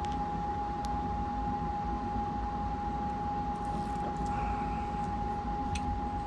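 Steady machine hum with a constant high-pitched whine, under a few faint clicks of hand crimping pliers squeezing a butt connector onto a wire.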